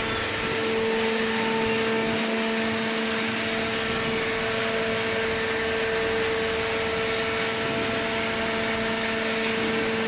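Hydraulic baler's power unit running steadily: an even machine hum with a constant whine over a hiss.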